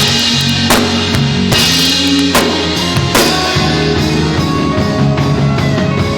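Live band playing loudly during a sound check: drum kit with bass drum and repeated cymbal crashes that ring on, over sustained bass and held chords.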